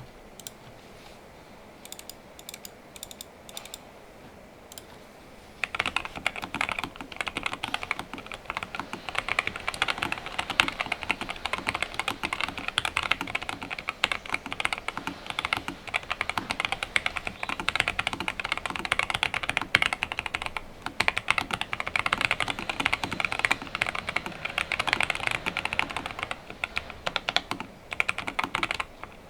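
Nuphy Air75 low-profile mechanical keyboard with a steel plate, PE foam and tape mod, lubed Gateron Low Profile Brown tactile switches and Nuphy PBT keycaps, being typed on. A few scattered keystrokes at first, then from about five seconds in steady fast typing with only brief pauses.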